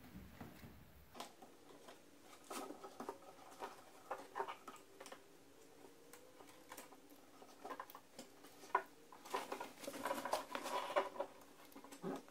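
Faint crackling and rustling in scattered bursts as a roll of vinyl-backed adhesive tape is handled, pulled and pressed onto the underside of a pickup's bed rail.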